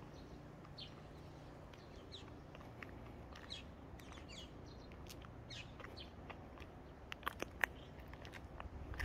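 Small birds chirping: scattered short calls over a faint low background. A few sharp clicks about seven seconds in are the loudest sounds.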